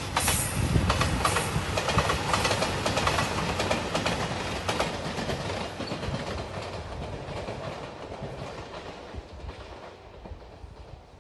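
JR Shikoku 2700-series diesel train passing, its wheels clicking rapidly over the rail joints, then fading steadily as it runs away.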